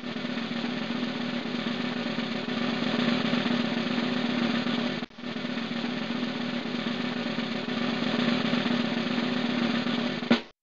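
Intro music: a continuous snare drum roll, broken off for a moment about halfway, ending with a sharp hit just before the end.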